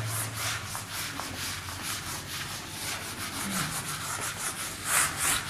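Whiteboard duster being wiped back and forth across a whiteboard to erase writing: repeated rubbing strokes, louder near the end.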